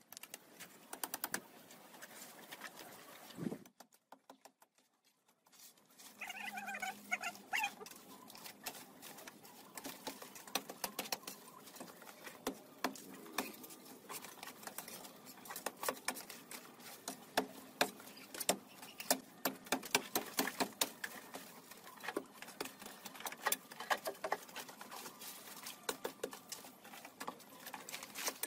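Dry creeper vines and brush crackling, snapping and rustling as they are torn off a wall by hand, a dense run of irregular clicks and snaps. The sound breaks off briefly a few seconds in, and a short pitched call is heard about six seconds in.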